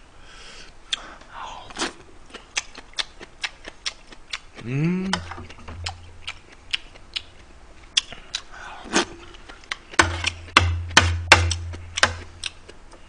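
Chopsticks and a spoon clicking and scraping against the dishes while eating, many separate light clicks that come quicker and louder toward the end, with a short rising murmur of the voice about five seconds in.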